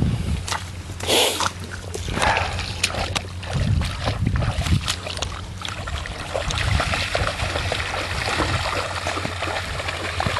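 Footsteps of a person in rubber boots wading through shallow flood water in a flooded field, sloshing and splashing with each stride. Irregular knocks and rustles in the first half give way to a steadier run of splashing from about the middle on.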